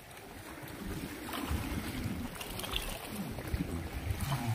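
Wind rumbling unevenly on the microphone, with a faint wash of sea water around the boat.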